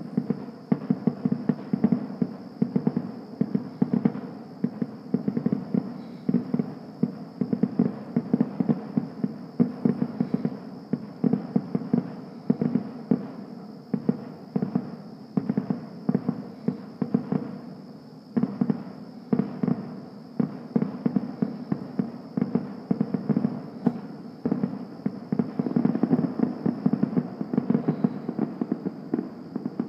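Fireworks exploding in a dense, continuous barrage of booms and bangs, many a second, starting abruptly after a quiet moment.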